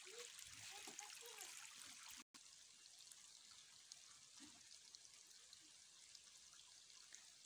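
Near silence: a faint steady outdoor hiss, with faint children's voices in the first second or so and once more mid-way, and a momentary total dropout a little after two seconds.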